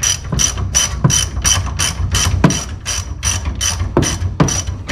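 Hand socket ratchet clicking rapidly and evenly, about five clicks a second, as it is swung back and forth to undo a rear suspension bolt.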